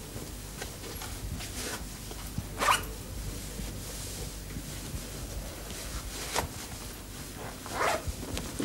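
Clothes being handled, with a few brief rustling swishes of fabric over a steady low background hum.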